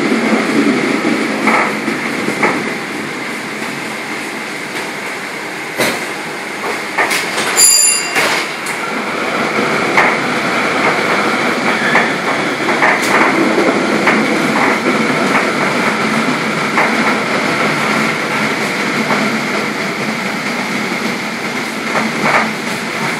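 Restored PCC streetcar running along its rails, heard from inside the car: a steady running noise with scattered clanks and knocks from the wheels on the track, and a short ring about eight seconds in.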